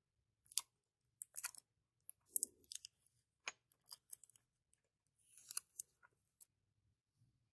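Thin clear plastic film crackling and crinkling in short, irregular crackles as fingers peel it off a small brass disc.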